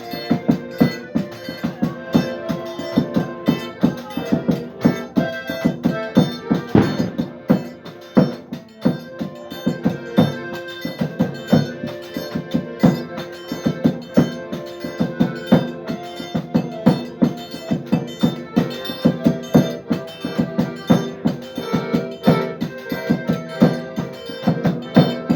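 Accordion playing a tune over a steady drum beat of about two strokes a second.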